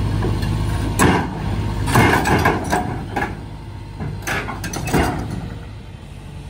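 Tracked excavator's diesel engine running as the machine crawls up onto a steel lowboy trailer. The engine hum drops after about a second, and the steel tracks clank sharply against the trailer deck several times.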